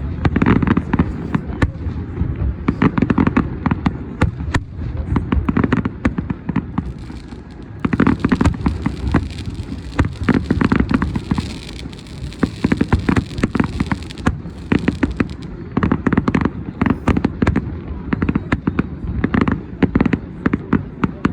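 Fireworks exploding in rapid, dense volleys of sharp bangs and cracks, with a stretch of crackling, sizzling effects about eight to fourteen seconds in.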